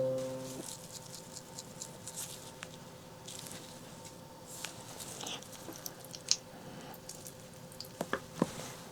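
Close-miked eating sounds of braised pork leg: soft wet squishing and smacking with scattered small clicks, a sharper click about six seconds in and a few more near the end.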